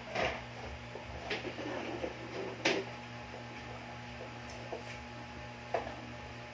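Broom sweeping a tiled floor: light scratchy strokes with a few short knocks, the sharpest about two and a half seconds in, over a steady low hum.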